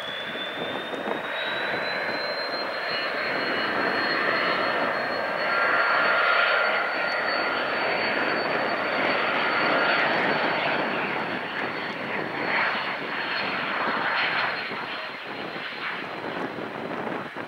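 Cessna Citation Bravo's twin Pratt & Whitney PW530A turbofans at takeoff power during the takeoff roll. A high whine climbs in pitch over the first couple of seconds and then holds steady over a broad jet rush, which swells as the jet passes and fades toward the end.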